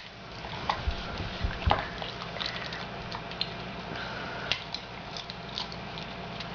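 A beagle chewing and mouthing an edamame pod to pop the beans out: irregular small crunches, clicks and wet smacks, with a few low thumps between one and two seconds in.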